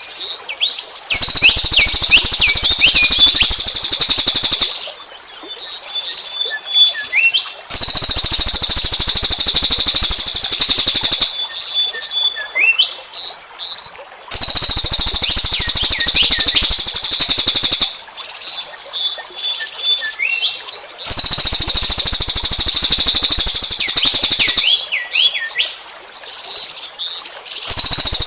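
Small songbird's 'tembakan' song used as a trapping lure: loud bursts of a very fast, harsh, high trill, each lasting a few seconds. They alternate with quieter runs of short chirps that slide downward, and the pattern repeats about every seven seconds.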